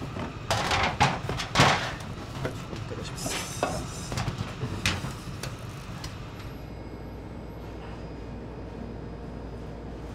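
Work clatter in a bakery kitchen: a run of knocks, bangs and scraping for about five seconds, then only a steady low machine hum.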